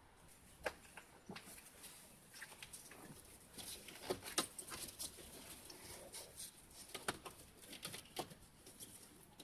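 Faint, irregular light clicks, taps and rustling, busiest through the middle.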